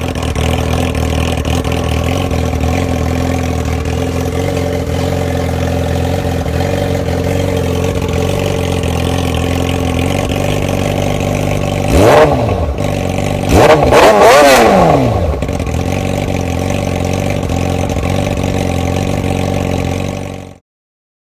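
Yamaha YZF sportbike's inline-four engine idling through a Toce aftermarket exhaust, with two quick throttle blips about halfway through, the second longer and louder, each rising and falling back to idle. The sound cuts off near the end.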